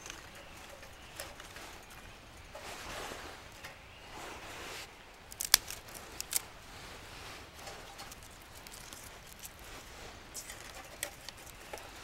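Dry twigs rustling and clattering as they are handled and fed into a small steel folding wood stove (Uniflame Nature Stove), with two sharp snaps of twigs broken by hand a little past the middle, about a second apart, and a few lighter cracks near the end.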